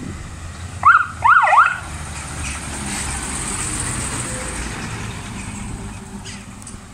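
Scania P340 fire engine giving a short siren blip about a second in: two or three quick rising-and-falling sweeps. Then its diesel engine runs steadily as the truck drives slowly past close by.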